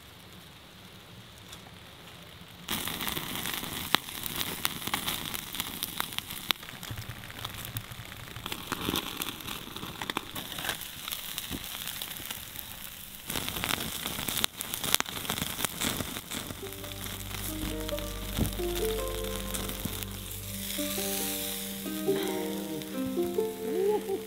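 Salmon fillets sizzling in a wire grill basket over a crackling wood fire, with many small pops and crackles, starting about three seconds in. Background music comes in about two-thirds of the way through.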